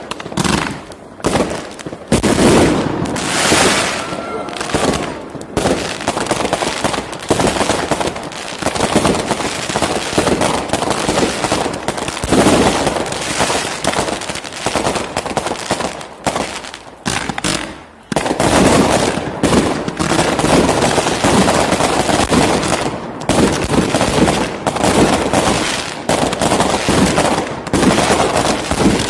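Professional fireworks display: a dense, rapid barrage of shells and multi-shot cakes launching and bursting, one report hard on the next. The volley thins briefly about eighteen seconds in, then runs on as densely as before.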